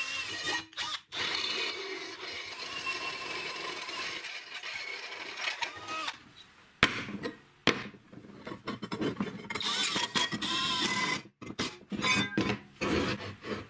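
Drill press boring through a clamped metal plate, the bit whining steadily as it cuts for about the first six seconds. After that, short stretches of drilling and handling follow one another, with sharp clicks and knocks and another brief whine about ten seconds in.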